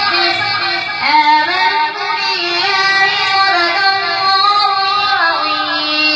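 Quran recitation (tilawat) by a single voice, chanted melodically with ornamented pitch runs, ending in a long held note near the end.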